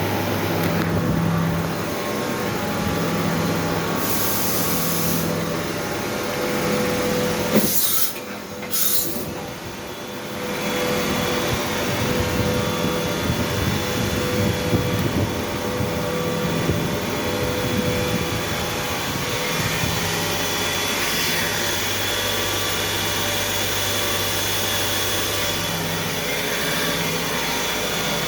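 CNC machine running: steady mechanical noise with a constant hum, interrupted by short hissing bursts and a brief lull about eight seconds in.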